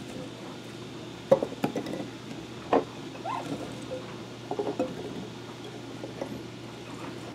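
Raw potato cubes being picked out of a bowl and dropped into glass quart mason jars: a scatter of soft knocks and light glassy clinks, a few of them sharper, over a low steady hum.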